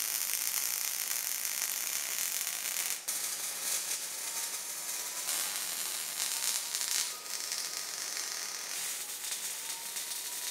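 MIG welding with a Miller Multimatic 220: the steady crackling sizzle of the arc, stopping and restarting a few times as short beads are laid.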